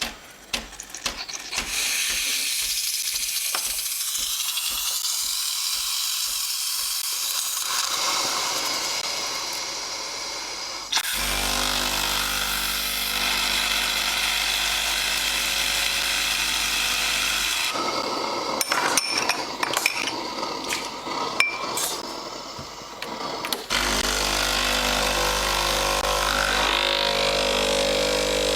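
Sage Barista Express espresso machine at work: a long hiss, then a motor's steady hum, a stretch of metal and cup clinks, and the hum again near the end.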